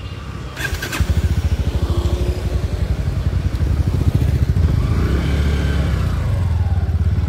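Motorcycle engine starting about a second in, then running with a rapid low firing beat that grows a little louder near the middle.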